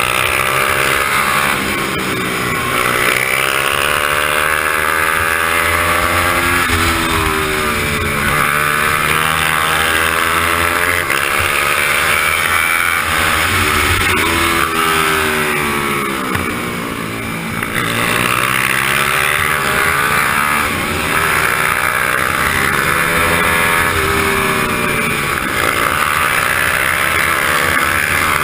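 Onboard sound of a pit bike's engine racing, its pitch climbing through the gears and dropping back again and again, easing off briefly about two-thirds of the way through, with wind rushing over the camera.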